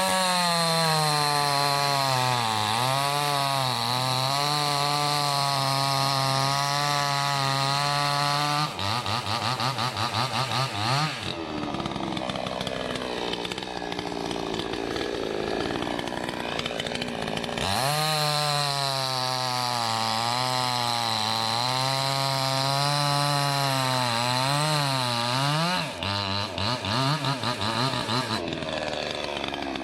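Salem Master two-stroke gas chainsaw cutting through maple logs at full throttle, its engine pitch wavering as the chain bites. It eases off for several seconds about 9 s in, bogs into a second cut at around 18 s, and drops back again near the end.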